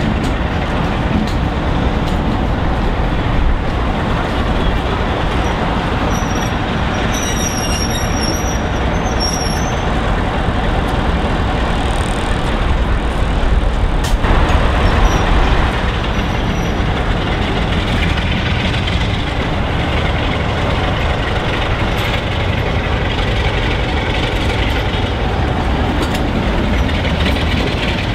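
Class 47 diesel locomotive with its Sulzer 12-cylinder twin-bank engine working as the locomotive pulls away and draws past. It makes a loud, steady rumble that swells a little about halfway through.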